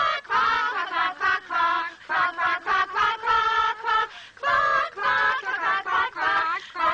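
A chorus of high, cartoonish duckling voices singing a short song syllable by syllable, with a brief break about four seconds in.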